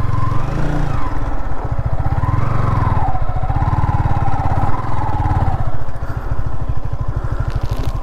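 Single-cylinder engine of a Yamaha MT-15 motorcycle running at low speed while ridden over a rough, broken track, with the engine note rising and falling as the throttle changes.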